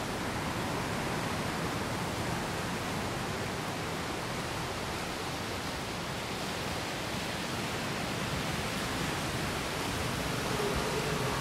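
Steady, even rushing noise with no distinct events and no rhythm.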